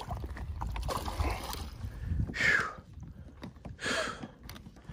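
Hooked fish splashing beside a plastic pedal kayak while it is brought to the boat: low handling rumble and small knocks on the hull, then two short splashes about a second and a half apart.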